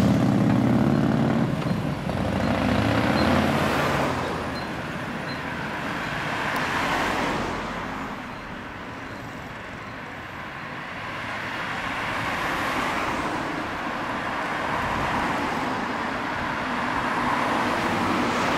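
Indian Chief Classic's V-twin engine running as the motorcycle rides off, fading out within the first two seconds. After that comes street traffic, with vehicles passing that swell and fade several times.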